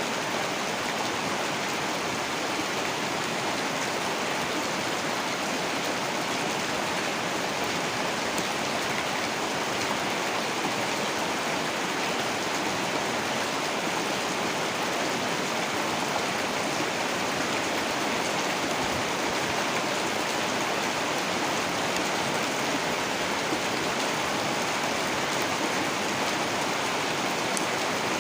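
Heavy rain falling steadily, a dense, even hiss of rain with no changes or distinct events.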